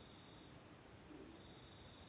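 Near silence: a faint steady hiss with a faint high tone that drops out about half a second in and returns just over a second in.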